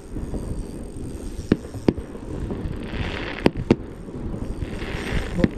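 Distant fireworks bursting: about five sharp pops with two short spells of crackling, over a steady low rumble.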